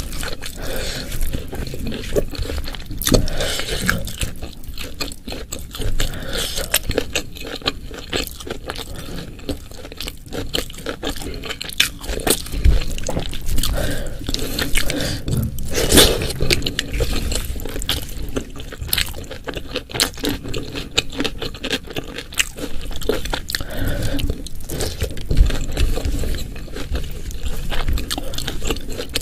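Close-miked eating: mouth clicks with chewing and crunching of food, mixed with cutlery scraping on a plate.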